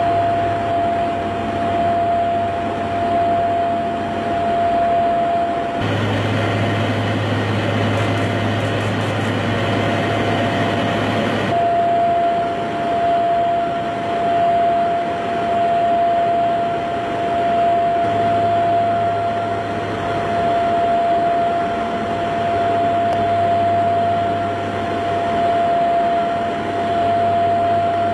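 Steady aircraft noise as heard from an airborne plane: a continuous engine and airflow drone with a high steady whine. About six seconds in it changes for some five seconds to a louder, fuller rush without the whine, then the whine returns.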